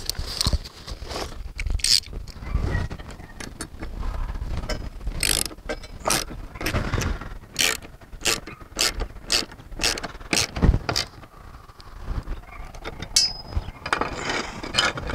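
Socket wrench ratcheting while tightening a bolt on a metal antenna-mast roof bracket: a run of sharp, irregular clicks, with metal parts knocking and rattling on concrete roof tiles.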